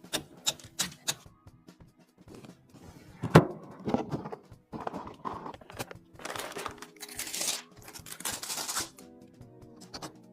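Background music with handling noises over it: several sharp clicks in the first second, a single loud thud about three seconds in, and two stretches of rustling, like packaging being torn or crinkled, in the second half.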